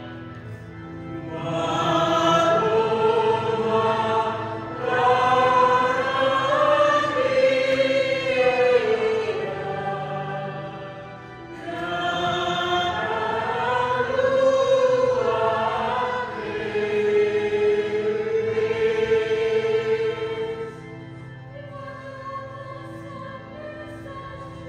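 Choir singing a hymn over a steady held accompaniment, in four long phrases. The voices drop away about three-quarters of the way through, leaving the softer accompaniment.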